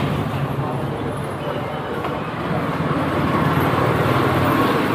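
Steady low rumble of road traffic, a motor vehicle running.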